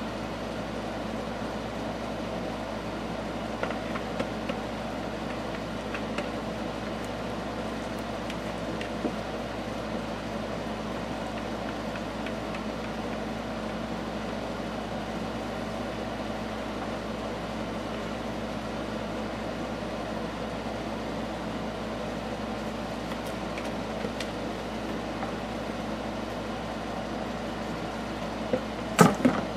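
Steady background hum with a few faint taps, then a short cluster of louder knocks near the end.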